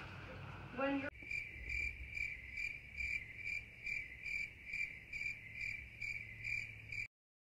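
Cricket chirping in a steady rhythm of about two and a half high chirps a second. It starts abruptly after about a second of room noise and cuts off suddenly near the end.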